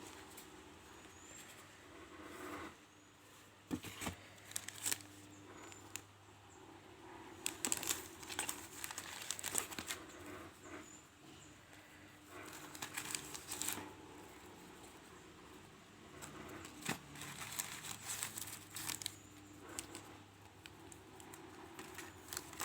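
Packaging being handled and opened: irregular crinkling and rustling with brief tearing sounds and sharp clicks, coming in clusters.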